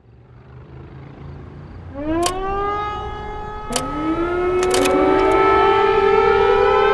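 Air raid sirens winding up: one starts rising about two seconds in, a second joins a little later, and their pitches climb and level off into a loud, steady wail. Sharp clicks mark the moments the sirens start.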